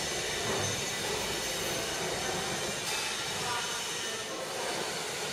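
Paper slitting and rewinding machine running, a steady mechanical rumble and hiss with faint steady whining tones.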